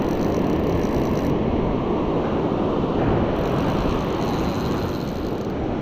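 Steady rush of surf on a beach with wind on the microphone.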